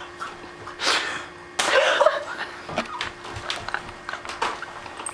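A stretched rubber band snapped against a man's bare back: a sharp smack about a second and a half in, a loud cry right after it, then laughter.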